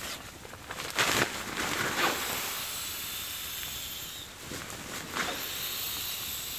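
Nylon sleeping gear rustling as it is handled. A few short rustles and knocks come first, then a steady soft hiss that dips for about a second and starts again.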